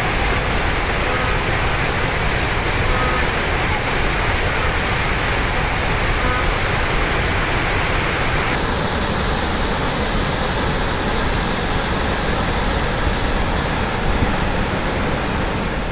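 Floodwater pouring over the curved crest of an overflowing dam and churning in the pool below: a loud, steady rush of falling water, its hiss dropping slightly about halfway through.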